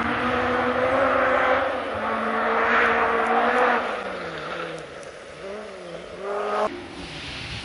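Rally car engine running at high revs, then its note dropping and climbing again as it grows fainter; the sound cuts off abruptly near the end.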